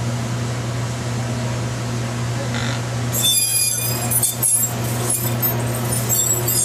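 Ultrasonic metal seam welder welding a solar tube to its absorber plate: a steady machine hum, then about three seconds in a harsh, shrill screech with several high whistling tones starts and carries on unevenly as the welding wheel runs along the metal.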